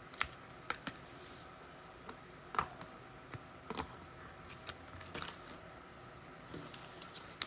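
Trading cards being handled and set down on a table: scattered light taps and clicks, about ten of them.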